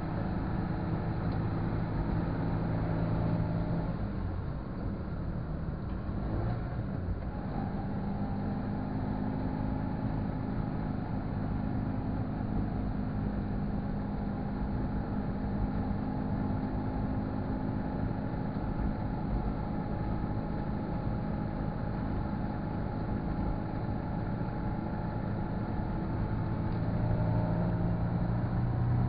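Car engine and road noise heard from inside the cabin while driving. The engine note shifts around four and seven seconds in, holds steady, and grows louder near the end.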